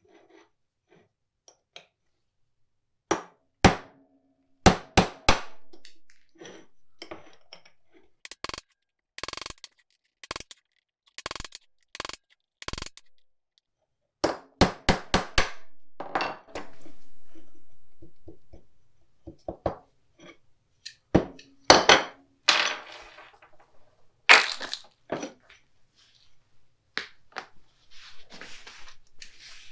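Hammer and punch tapping on the steel shell of a riveted mower deck sheave, knocking out the drilled-down rivets: irregular sharp metallic taps and clinks, often two or three in quick succession, with loose metal pieces rattling between them.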